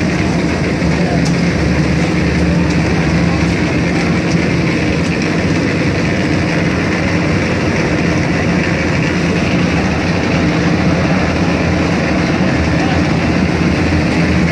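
Engine of a portable concrete mixer running at a steady speed, a constant low hum with a dense mechanical noise over it.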